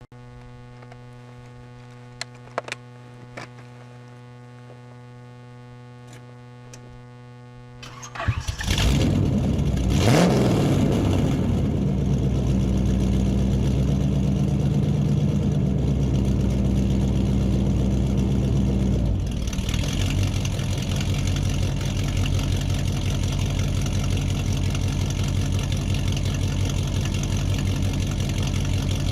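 A trike engine is started about eight seconds in, revved once with a rising then falling pitch, and left idling, its idle changing character a little past the middle. Before the start there is a steady low hum broken by a few sharp clicks.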